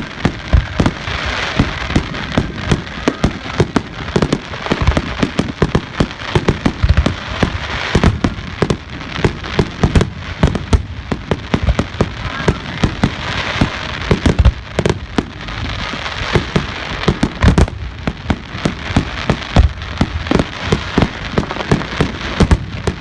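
Fireworks display at close range: a dense barrage of sharp bangs, several a second, overlapping, with crackling in between.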